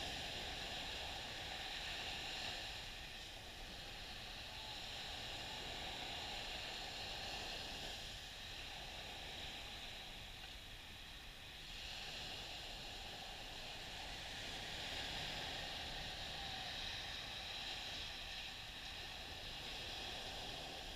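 Gentle surf washing up on a sandy beach: a steady hiss of small breaking waves that eases off about eight seconds in and swells again a few seconds later.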